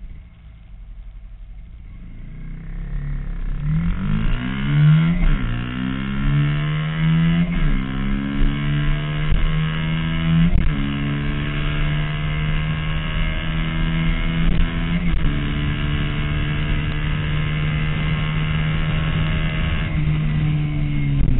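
2011 Honda CBR250R's single-cylinder engine accelerating hard through the gears. After a quieter start, the revs climb from about three seconds in, with several upshifts where the pitch drops and rises again, then hold high and steady, with wind rushing past.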